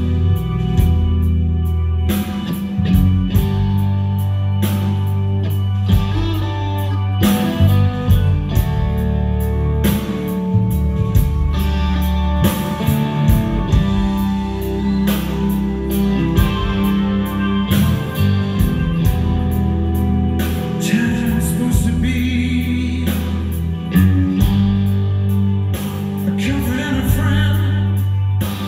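Live rock band playing, with drum kit, bass and electric guitar over a steady beat.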